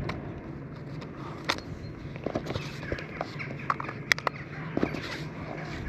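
Sharp plastic clicks and light handling noise as the folding arms of a small camera drone are swung open, over a steady low hum.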